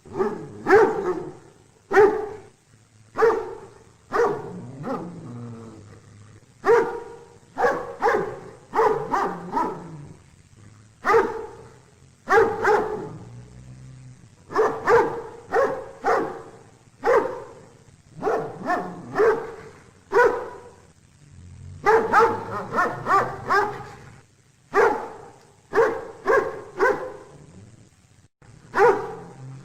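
Dog barking repeatedly in quick clusters of two to four barks, with short pauses between the clusters.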